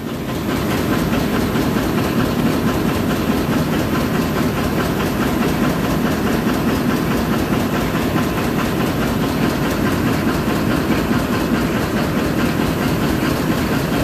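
Steady drone of running HVAC machinery, a loud even mechanical noise that steps up about half a second in and then holds level.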